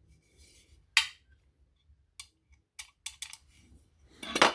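Small metal clock parts being handled and tested with a magnet: a few sharp clicks and taps, then a louder metallic clatter near the end as parts knock together.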